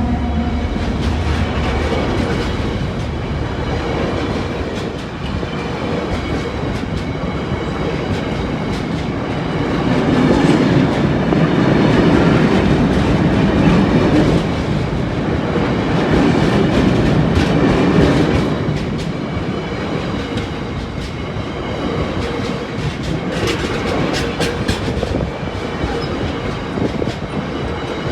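Freight wagons of a train hauled by a Class 70 diesel locomotive rolling past, the wheels clattering over the rail joints and crossing. The rumble grows louder for a stretch in the middle, then eases.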